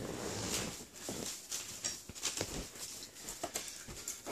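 Scattered light taps and rustles from a baby's hands patting and grabbing a boxed plush Elmo toy and its packaging.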